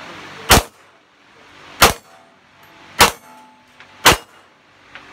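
Glock 17 9mm pistol firing 115-grain Tula rounds in a timed string: four sharp shots a little over a second apart, with a fifth starting right at the end.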